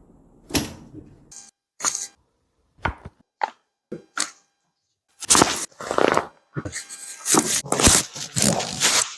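Joint pops and cracks during chiropractic adjustments, with short sharp cracks and thuds. A few come singly at first, then a dense, louder run of them fills the second half.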